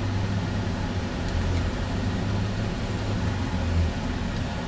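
Steady low rumble inside the cabin of a four-wheel-drive vehicle driving slowly over rough, loose gravel terrain: engine and tyre noise coming through the body.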